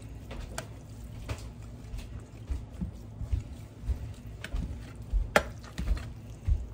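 A metal utensil stirring and scraping browned ground beef in a plastic colander to drain off the grease, with scattered clicks and taps against the colander. A sharper click comes a little after five seconds in.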